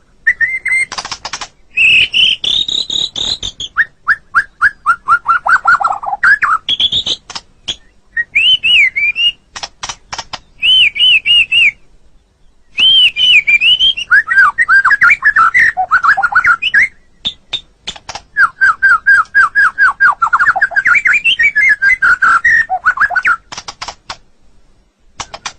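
White-rumped shama (murai batu) singing a loud, varied song: clear whistled phrases, fast series of repeated sliding notes and sharp clicking notes, with a pause of about a second near the middle.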